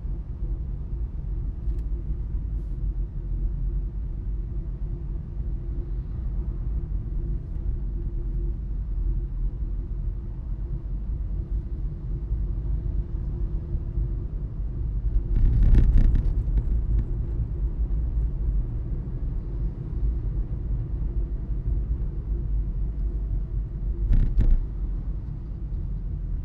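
Car driving on an open road: steady low engine and tyre rumble with a faint constant hum. Two short louder rushes of noise come through, one swelling about two-thirds of the way in and a briefer one near the end.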